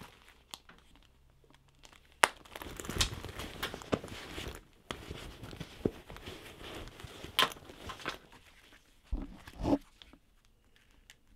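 Rustling and crinkling of hands going through a leather wallet and handling small objects, with a few sharp clicks and, near the end, two soft knocks.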